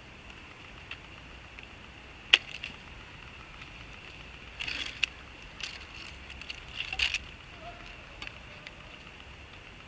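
Swiss Army penknife blade cutting through a thin twig pressed against a birch log: one sharp crack about two seconds in, then a few short crackling cuts and scrapes around the middle.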